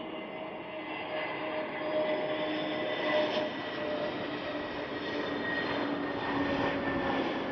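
Jet airliner's engines running as it passes, a steady whine with several tones that slowly drift in pitch over a rushing noise.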